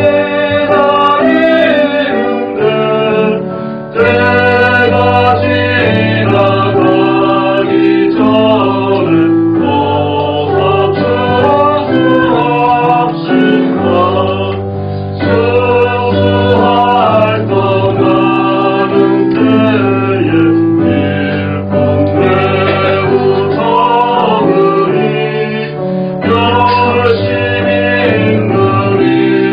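Church choir singing a Korean Thanksgiving hymn with instrumental accompaniment, women's voices most prominent, sung over held chords and a steady bass line.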